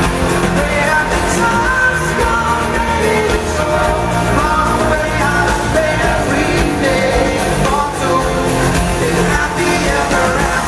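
Live pop-rock band playing at full volume with a lead singer, heard as a concert recording from the audience.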